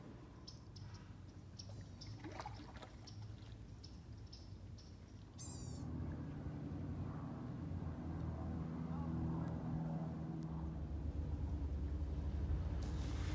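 Faint songbirds chirping in quick repeated calls, with a higher falling call about five seconds in. Then a louder low drone of an idling boat motor with a few steady pitches, and near the end a hissing breath as a manatee exhales at the surface.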